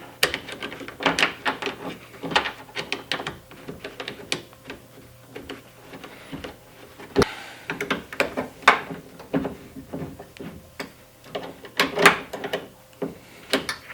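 Screws being turned back into a Toyota Sienna's front door by hand: a run of irregular small clicks and scrapes of the tool and door parts, with one sharper knock about seven seconds in.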